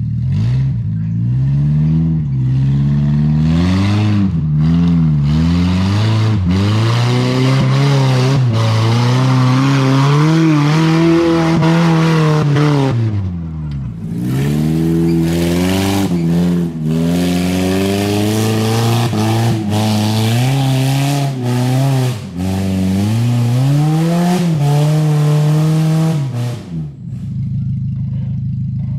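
Off-road vehicle engine revving hard and unevenly, its pitch rising and falling again and again as it works up the trail. It drops away briefly about halfway through, picks up again, and falls off to a lower steady note near the end.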